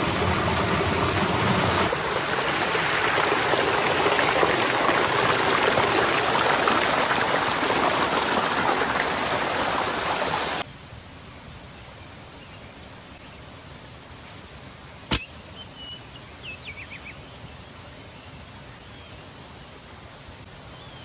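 Mountain stream rushing over rocks and a small waterfall: a steady, loud rush of water that cuts off abruptly about ten seconds in. After that, quieter outdoor ambience with a few faint high chirps and one sharp click.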